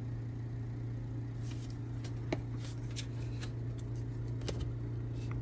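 Faint clicks and taps of painted plastic test spoons and swatch cards being handled and set down on a desk mat, over a steady low hum.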